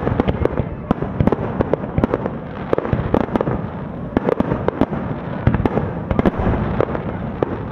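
Aerial firework shells bursting in a dense barrage: many sharp booms and cracks a second, overlapping over a continuous rumble.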